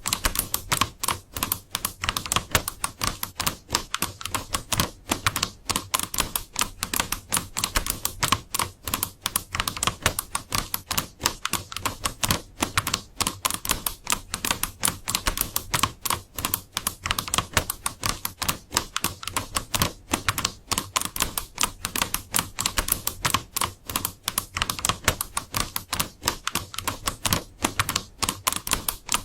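Computer keyboard being typed on without pause, a fast, even stream of key clicks.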